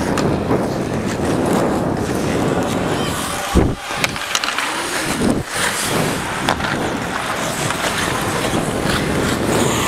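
Ice hockey skates carving and scraping across the ice while skating, heard from a body-worn camera, with wind rushing over its microphone. A heavy low thump comes about three and a half seconds in, followed by a few sharper knocks.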